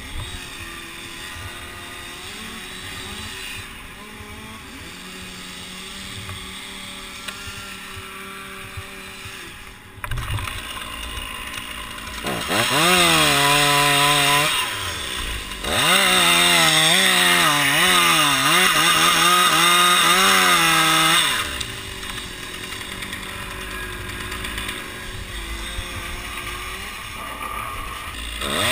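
Stihl chainsaw idling, then revved to full throttle a little before halfway and cutting through a pine trunk in two loud pulls of a few seconds each, its pitch dipping and wavering under load. It then drops back to a steady idle.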